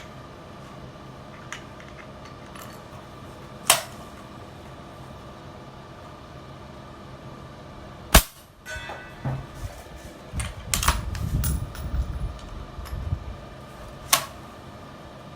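A single suppressed shot from a 6.5 Creedmoor rifle firing a hand-loaded subsonic round, a short sharp report about eight seconds in. It is the loudest sound, with smaller clicks of the rifle's bolt action and handling before and after it; the subsonic load does not cycle the bolt, so it is worked by hand.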